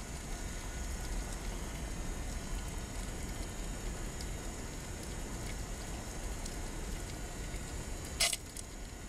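Underwater ambience through a camera housing: a steady hiss with a low rumble. One short, sharp snap about eight seconds in.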